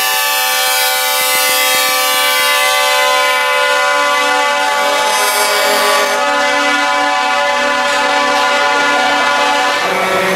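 Truck air horn held in one long, loud multi-tone chord, with the tones shifting a little about six seconds in.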